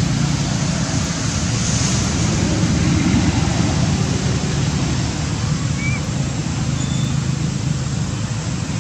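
Steady loud rushing noise with a heavy low rumble: wind buffeting the microphone. A couple of faint, short, high chirps come in the second half.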